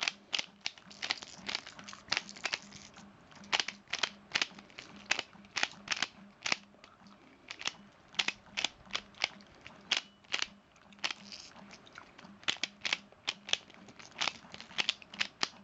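Plastic Pyraminx puzzle being turned fast during a timed solve: an irregular stream of sharp plastic clicks as the faces and tips snap round, several a second, with a couple of short pauses.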